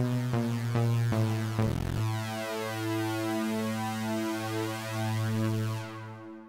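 Steinberg SIMPLE software synthesizer playing a monophonic lead: a few quick, short notes, then one long held note that fades away near the end.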